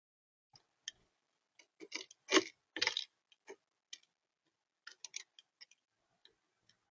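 Irregular taps and clicks on a bird feeder as a visiting animal feeds, picked up close by the feeder's built-in camera microphone; about a dozen, loudest in a cluster in the middle.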